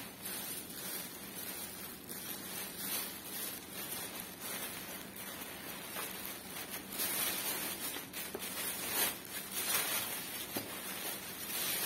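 Plastic courier mailer bag crinkling and rustling as it is handled and turned over, louder for a few seconds after the middle.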